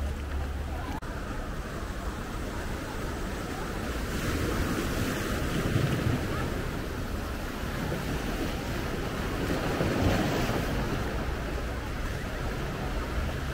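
Small ocean waves breaking and washing up the sand, rising twice to a louder rush, with wind buffeting the microphone.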